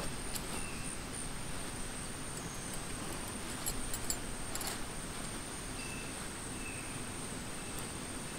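Steady high-pitched drone of insects, with light rustling and a few clicks from tent fabric and pole bag being handled about halfway through.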